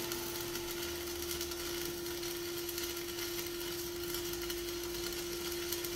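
Electric arc welding on a steel H-beam overhead: a steady crackling hiss from the arc, with a constant hum underneath.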